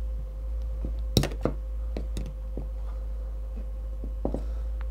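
Handling clicks and knocks of a smartphone being slotted into a plastic phone holder: a sharp click about a second in, then several lighter taps and clicks.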